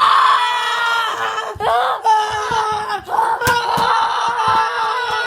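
A person screaming loudly in long held cries whose pitch dips and breaks between them, with a sharp smack about three and a half seconds in. The screaming cuts off suddenly at the end.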